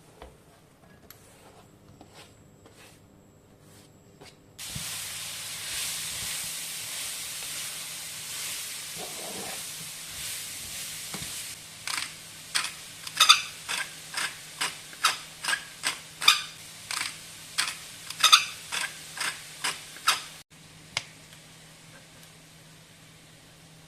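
Food sizzling in a frying pan, then stirred with a utensil that scrapes and knocks against the pan about twice a second. The sizzle cuts off suddenly near the end.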